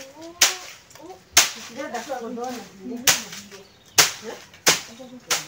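A wooden stick beating a heap of dried bean plants on a tarp: about six sharp cracks at uneven intervals of roughly a second. This is threshing, knocking the beans out of the dry pods.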